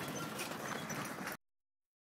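Scattered knocks and rattling from a house and yard shaken by an earthquake, with a few faint bird chirps, cutting off to dead silence about a second and a half in.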